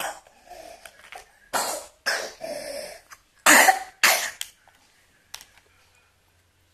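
A person coughing, a run of about five harsh coughs with the loudest about three and a half seconds in.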